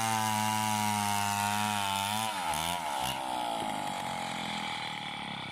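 Gas chainsaw running steadily under load as it saws a coconut log into lumber, its engine pitch dipping and rising a little over two seconds in, then running on.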